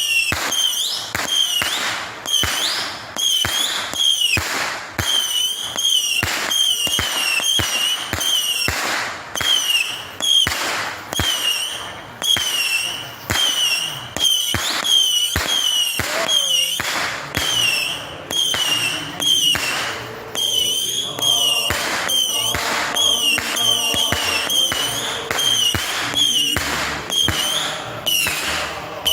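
Fireworks going off in a rapid string of sharp bangs about every half second, each followed by a short high whistling tone. About two-thirds of the way in, steady chord-like tones join them.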